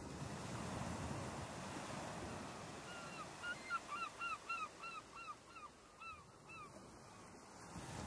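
Small waves breaking and washing up a sandy beach, with a bird calling over the surf: a quick run of about a dozen short, falling notes from about three seconds in until near the end.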